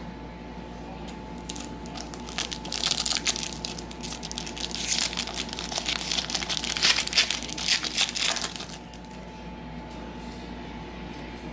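Crinkling and crackling of a foil trading-card pack wrapper being handled and torn open, a dense run of quick crackles that starts about a second and a half in and stops near the end.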